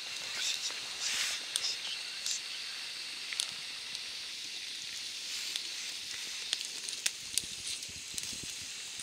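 Steady sizzling hiss of pasta frying in a cast-iron pan on a portable gas burner, with scattered pops and crackles that come more often in the second half.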